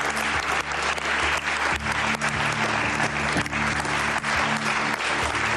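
Studio audience applauding steadily over held background music.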